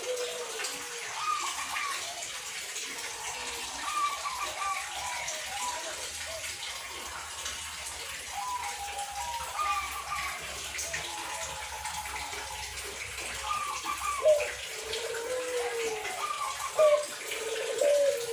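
Zebra doves (perkutut) cooing: short, quick runs of pitched notes repeated every couple of seconds, over a steady hiss.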